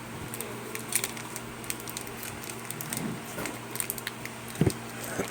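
Pokémon trading cards being handled: scattered light clicks and rustles over a steady low hum, with a dull thump near the end.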